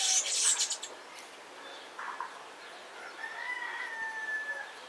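A rooster crowing: the tail of one crow at the start, then a second long, slightly falling crow about three seconds in that lasts about a second and a half. Near the start there is a brief burst of scratching as a metal sgraffito carving tool scrapes through slip into the clay plate.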